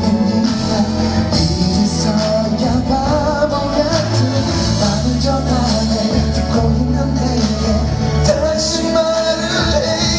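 A pop song performed live: a man singing into a handheld microphone over band backing with a steady bass line.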